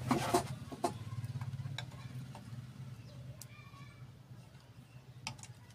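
Hand soldering on a TV power-supply circuit board: a few small sharp clicks and taps of the soldering iron and solder over a steady low hum.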